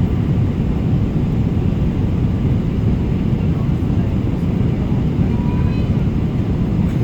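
Steady low rumble of a moving vehicle, even in level throughout.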